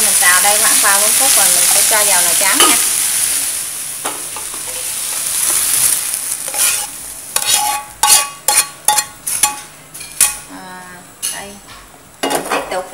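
Vegetables and mushrooms sizzling in hot oil in a frying pan while a metal spatula stirs and scrapes them. The sizzle fades after about four seconds, and a run of sharp metallic clanks and knocks follows as the pan is tipped and scraped out into the porridge pot.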